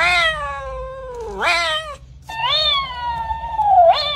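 A cat giving two long, drawn-out meows. The first bends up sharply near its end. The second slides slowly down and then swoops up.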